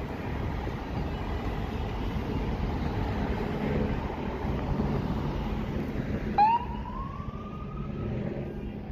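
Police cars driving past with a steady low traffic rumble. About six and a half seconds in, a police siren gives one short wail that starts sharply, rises in pitch and fades out about two seconds later.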